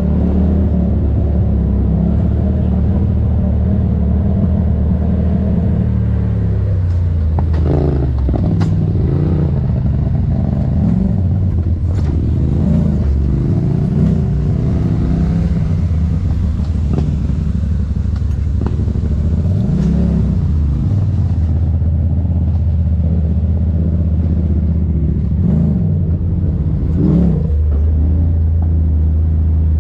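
Side-by-side UTV engine running steadily and revving up and down several times, with occasional knocks and rattles.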